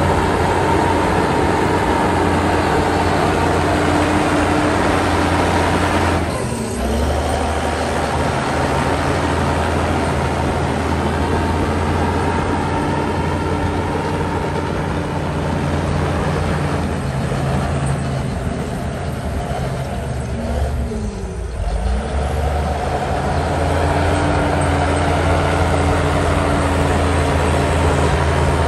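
Heavy diesel earthmoving machinery running under load with a steady low engine note. The note dips and shifts briefly about six seconds in and again around twenty-one seconds.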